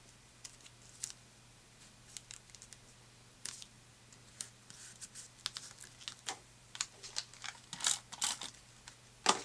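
Hands handling paper and washi tape on a scrapbook page: scattered light rustles and taps, getting busier towards the end, with one sharper tap just before the end.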